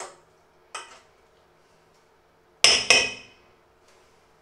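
A metal spoon knocks twice in quick succession against a stainless steel mixing bowl, about two and a half seconds in, and the metal rings briefly after each knock. Two fainter knocks of metal on the bowl come earlier.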